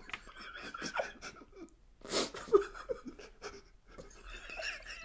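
Soft, breathy laughter from two men, coming in short irregular breaths and chuckles.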